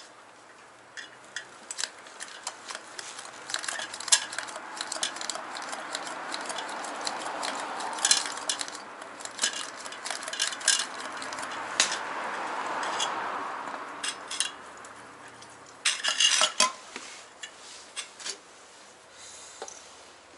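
Metal clinking and clattering as a portable liquid-fuel camping stove and its metal parts are handled and set up, with a steady hiss through the middle and a quick run of clinks near the end.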